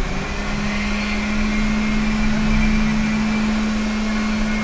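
Hot-air gun of an SMD rework station blowing onto a laptop graphics chip set to about 300 degrees, heating it from above for reballing. It makes a steady hum over a rush of air and comes on right at the start.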